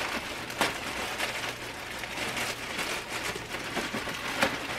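Parcel packaging crinkling and rustling as it is unwrapped by hand, a steady run of rustles with many small crackles.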